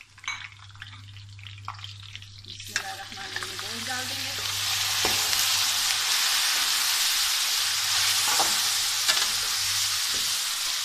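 Boiled meat pieces hitting hot oil and golden-fried onions in a metal pan: a few spoon clicks, then about three seconds in a loud, steady sizzle starts suddenly and builds as the meat is stirred, with occasional taps of the spoon on the pan.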